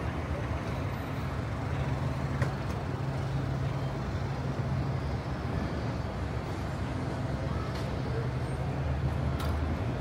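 City street ambience dominated by road traffic: a steady low rumble of passing vehicles, with a few faint clicks.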